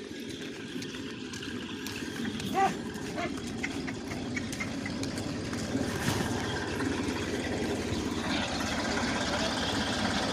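Engine of a roughly 50-year-old tractor running as it drives closer, pulling a trailer loaded with sacks of fodder. The steady rumble grows gradually louder.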